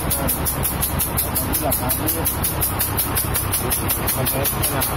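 An engine running at a steady idle, with a fast, even pulse of about ten beats a second; faint voices underneath.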